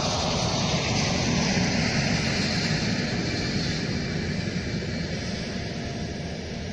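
An electric passenger train passing and moving away: a steady rush of wheels on rails that fades gradually over the last few seconds.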